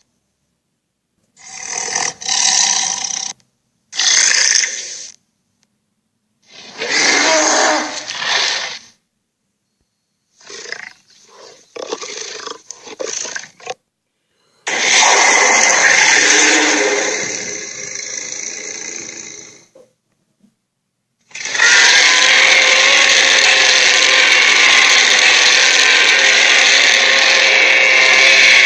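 A series of giant-creature roar and growl sound effects, separated by silence. There are several short bursts in the first half, then a roar of about five seconds that trails off, and a long steady roar of about seven seconds near the end.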